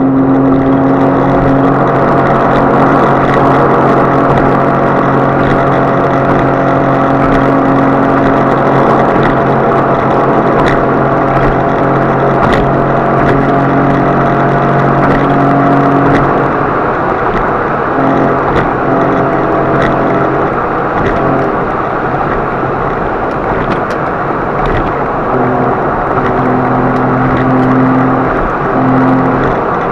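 Car engine and road noise while driving at speed: a steady engine drone that, about halfway through, breaks into shifting, intermittent tones under rougher noise.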